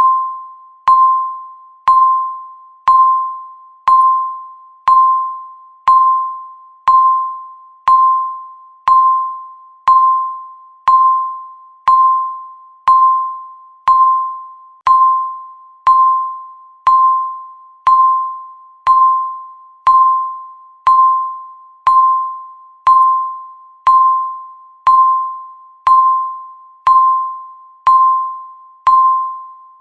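Countdown timer beeping once a second: a single electronic beep tone, each one struck sharply and fading away before the next.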